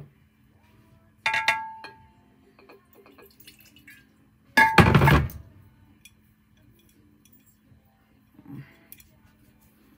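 Glassware clinking: a sharp ringing clink about a second in, then a louder knock with a ringing tone about four and a half seconds in, and a faint soft knock near the end. A low steady hum runs underneath.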